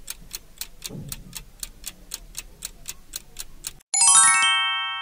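Quiz countdown-timer sound effect: a clock ticking about four times a second, then cutting off suddenly near the end into a bright chime of several ringing tones that fades out, marking time up and the answer reveal.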